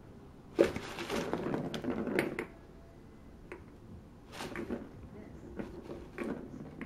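Crumpled brown wrapping paper crinkling and rustling as a cat digs and paws through it in a cardboard box: a long busy burst starting about half a second in, then shorter bursts of crackling later on.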